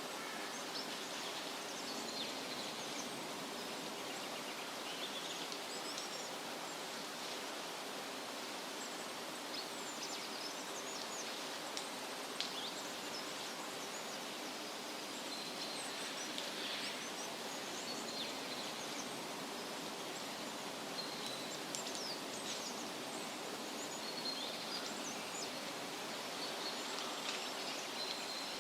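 Forest ambience recording: a steady rustling hiss with scattered short, high bird chirps.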